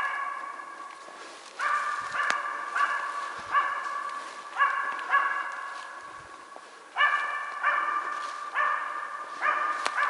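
Hunting Laika barking steadily, roughly one bark a second in uneven runs, each bark ringing on through the forest: the dog is baying at game it has found, which turns out to be a capercaillie.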